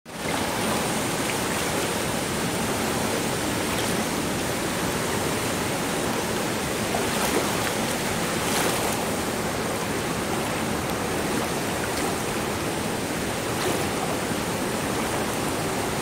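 Swollen, muddy stream rushing over rapids: a steady, even rush of fast-flowing water.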